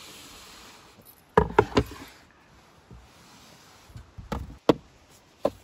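Wooden knocks and clunks as a plywood board is set onto a wooden drawer unit to form a table. Three quick knocks come about a second and a half in, and a few more follow near the end.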